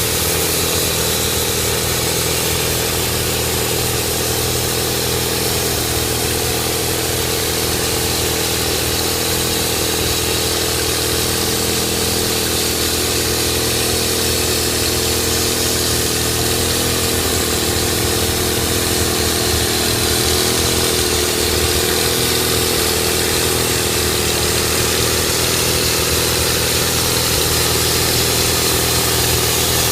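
Engine of a portable bandsaw mill running steadily at an even pitch.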